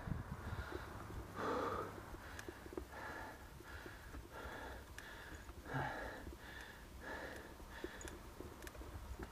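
A cyclist breathing hard and fast while climbing a steep 12% grade, in quick, even puffs about two a second: the sound of heavy exertion on the climb.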